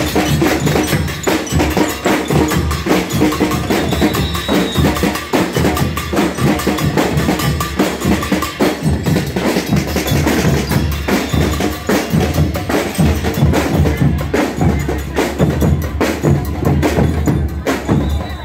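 Marching percussion band playing continuously on bass drums, snare drums and cymbals.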